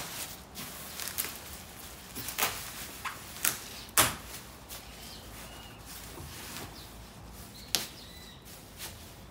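Plastic film and bubble-wrap packaging around a kayak rustling and crinkling as it is handled and pulled, with irregular sharp crackles, the loudest about four seconds in.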